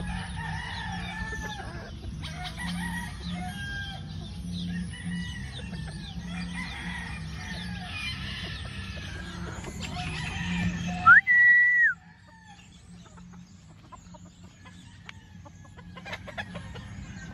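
Chickens clucking and calling, many short calls over one another. About eleven seconds in, a rooster gives a short loud crow that rises, holds and falls away; after it only faint scratching clicks remain.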